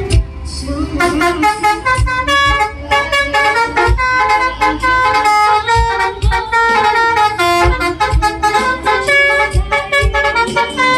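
A truck's telolet basuri musical air horns play a fast melody of short blaring notes, backed by a low thumping beat about once a second.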